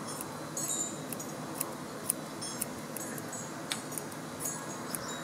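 Grooming scissors snipping the hair around a small dog's head: short, crisp metallic snips, about two a second, some with a brief high ring.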